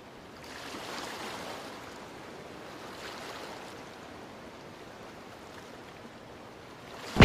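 Faint, steady wash of sea water, with no distinct knocks or clicks.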